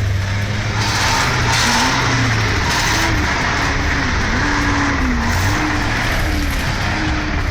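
Heavy diesel engine of a logging machine working under load, its pitch rising and falling as it revs, with a loud rushing, grinding noise over it from about a second in.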